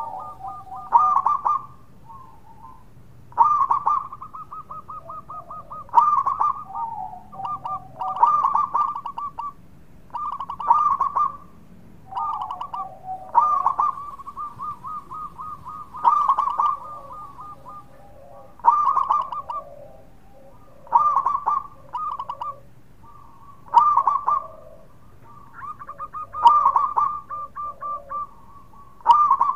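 Zebra dove singing: phrases of rapid, trilled cooing notes, with a loud burst about every two and a half seconds and softer, lower trills in between.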